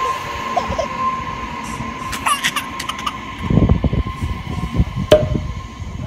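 Electric commuter train moving slowly past at a station. A few short high squeaks come about two seconds in, then from about three and a half seconds a low rumble with rapid clatter of wheels over the rails, and a sharp click near the end. A steady tone runs under it and fades out.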